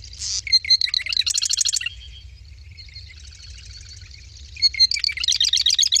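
Marsh wren song: two songs about four seconds apart, each a few sputtering notes running into a fast rattling trill, with fainter song between them.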